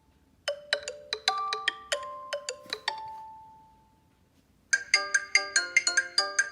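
Xiaomi Redmi Note 4 stock phone tones: a short melody of struck, chiming notes that rings out and fades away. After a brief pause, a different, quicker and busier ringtone melody starts about three-quarters of the way in.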